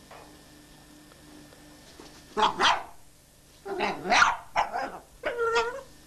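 Dachshund barking: after a quiet first two seconds, a run of several sharp barks, the last one longer and drawn out.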